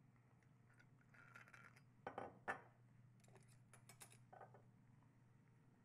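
Faint clicks and light knocks of a rum bottle's screw cap being twisted open and the glass bottle handled on the counter, with two slightly louder knocks about two seconds in and a quick run of clicks a second later.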